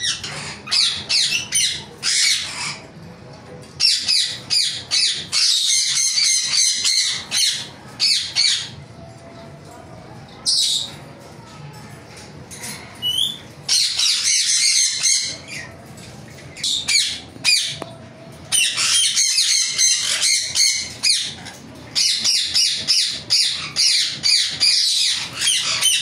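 Caged Psittacula parakeets (Alexandrine and ring-necked) squawking: bouts of rapid, harsh, repeated screeches a few seconds long, with short quieter pauses between.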